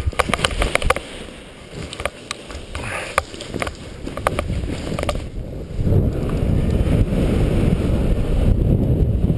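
Footsteps running through snow during a paraglider's launch run, an irregular series of sharp knocks for about five seconds. Then, from about five and a half seconds in, once airborne, a steady low rushing of wind on the microphone.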